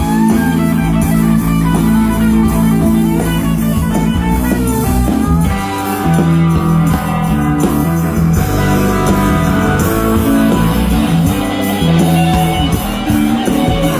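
Live band playing an instrumental passage: guitar, electric bass and drum kit.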